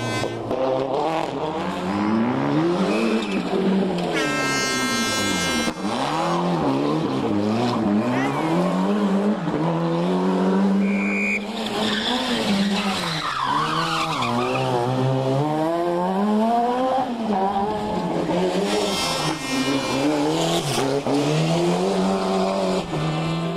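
Rally cars driven flat out one after another, their engines revving hard, the pitch climbing and dropping again and again through gearchanges and lifts.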